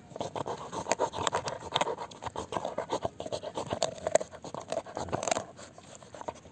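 Rapid, irregular clicking and scratching on the hard shell of a stone apple (bael fruit) as it is worked at to crack it open. The clicks thin out about five and a half seconds in.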